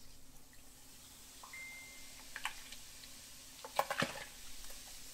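Iron Out powder pouring from a plastic measuring cup into a tub of cold water, which sizzles faintly as it dissolves. A few sharp clicks come about four seconds in.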